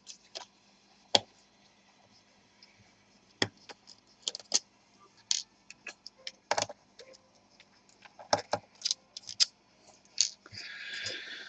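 Small metal clicks and taps of a screwdriver and tiny screws as the bottom-cover screws are taken out of a laptop, with a short scraping rasp near the end.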